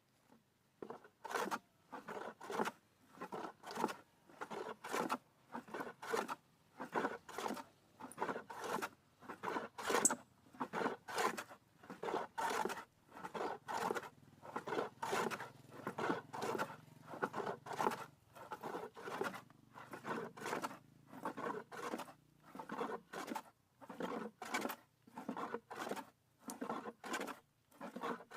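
A hand tool scraped back and forth on wood in steady rasping strokes, about two a second.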